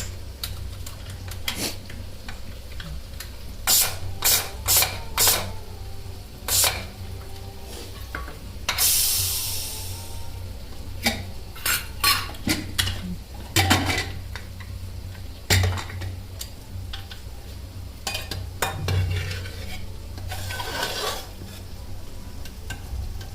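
Steel cookware and a spoon clinking and knocking, with frying masala sizzling in the pan and a short hiss about nine seconds in.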